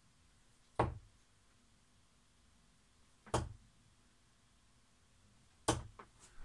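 Three darts thudding one after another into a Unicorn dartboard, about two and a half seconds apart.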